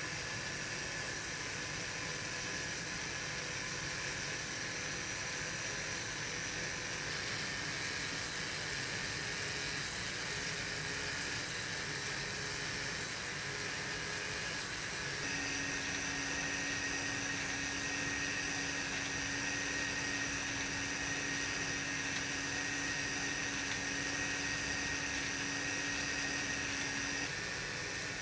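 LEGO Power Functions electric motor and plastic gear train whirring steadily as the small Technic vehicle drives. About halfway through a clearer, steady pitched whine joins in and stops shortly before the end.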